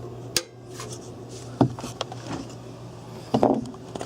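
A few sharp clicks and knocks from handling a desktop computer case and plugging its cables back in, over a steady low hum.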